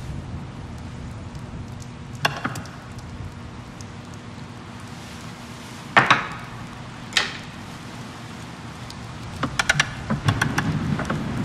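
A few sharp knocks over a low steady hum: single ones about two, six and seven seconds in, the one at six the loudest, then a quick run of clicks and knocks from about nine and a half seconds.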